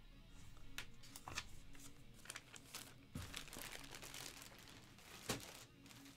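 Packaging being handled: a plastic bag and crumpled brown kraft packing paper crinkling in irregular crackles, with one sharper crunch about five seconds in.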